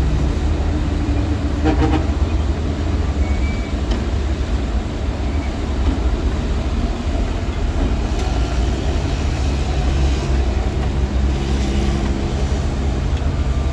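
Heavy diesel earthmoving machinery running steadily with a continuous low engine rumble.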